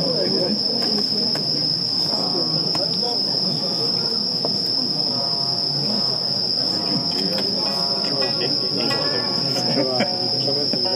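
Night insects, crickets, trilling as one steady, unbroken high tone, over the indistinct murmur of people talking nearby.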